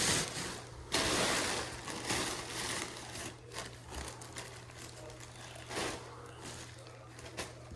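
Rustling and crinkling of loose blown-in insulation being pulled out of a wall cavity by hand, in irregular bursts that grow fainter after the first few seconds, over a steady low hum.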